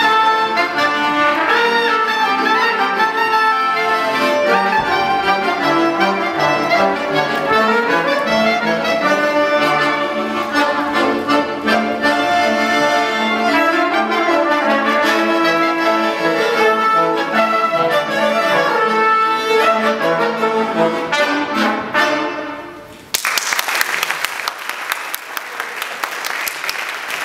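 Klezmer band of trumpet, clarinet, viola and accordion playing a tune, which ends about 23 seconds in; the audience then applauds.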